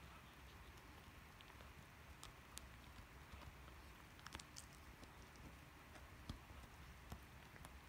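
Faint, irregular clicks and crunches of a black Labrador puppy gnawing a cow ear, over a low hiss.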